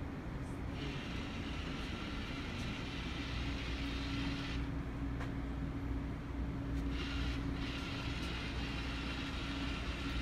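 iRobot Create 2 robot base's drive motors whirring as it rolls over carpet, stopping for a couple of seconds in the middle and then starting up again, over a steady low hum.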